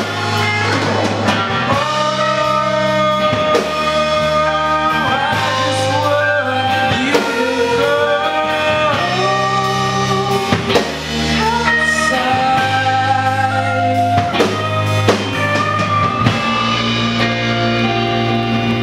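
Live indie rock band playing a song: a man singing over electric guitars and a drum kit.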